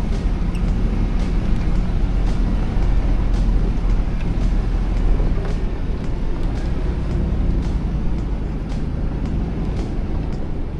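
Lexus GX470's 4.7-litre V8 running steadily as the SUV drives a rough, iced-over off-road trail on Nitto Mud Grappler tyres, a constant low drone under tyre and road noise. Short clicks and knocks come through every second or so.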